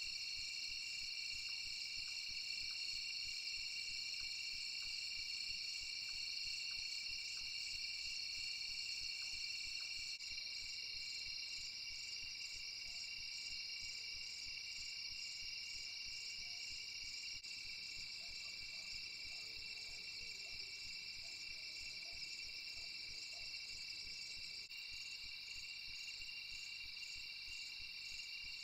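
Night chorus of crickets and other insects: steady, high-pitched trilling in several overlapping pitches, with a faster pulsing trill coming in higher up about ten seconds in.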